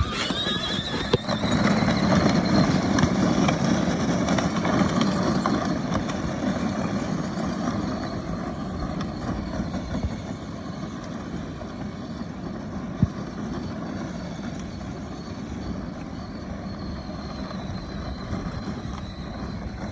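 A child's side-by-side driving. Its motor whine rises over the first second or two as it gets going, under steady tyre and running noise that slowly grows fainter.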